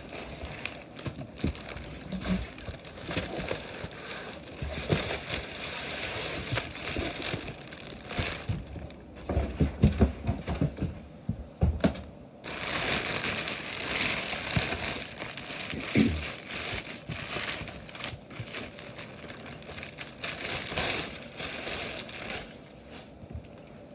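Packaging crinkling and rustling with scattered knocks and clicks as a trading-card case is opened by hand.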